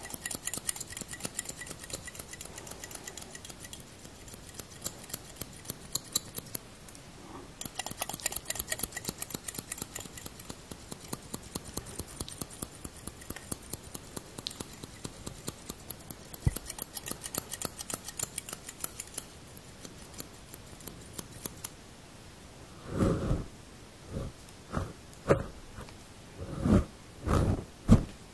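Barber's scissors snipping rapidly and steadily at the fur of a furry microphone windscreen close to the mic, many quick crisp snips a second, with a brief pause about seven seconds in. Near the end the snipping stops and several louder, low rubbing sounds come as hands brush and handle the furry cover.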